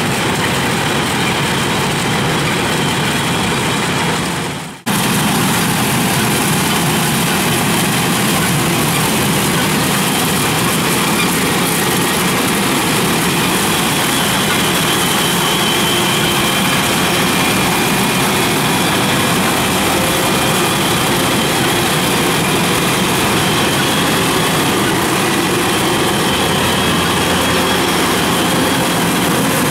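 Kubota DC-105X combine harvester running while it harvests rice: a steady mix of engine and threshing-machinery noise. The sound briefly drops out about five seconds in, then goes on as before.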